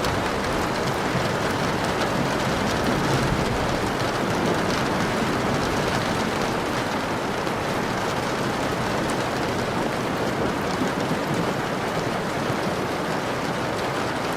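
Steady rain falling: an even, unbroken hiss of drops with no breaks or single strikes standing out.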